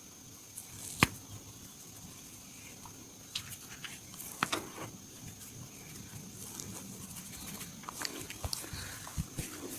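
Hands massaging a person's neck and upper body: scattered slaps, pats and clicks, with one sharp crack about a second in, over a faint steady high whine.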